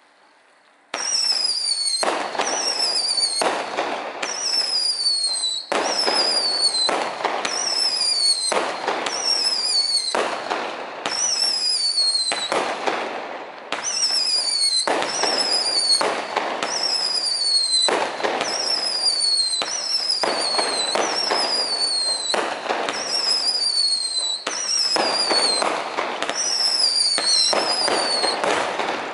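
Jungle Cat firework cake firing shot after shot, about one a second, starting about a second in. Each shot has a whistle that falls in pitch over a hiss.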